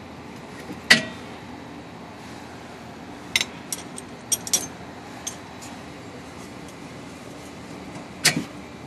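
Sharp metallic clinks and knocks, irregularly spaced, as an 18 mm wrench works on a minivan's lower rear shock mounting bolt. The loudest knock comes about a second in and another near the end, with a quick run of lighter clinks in the middle, over a steady low hum.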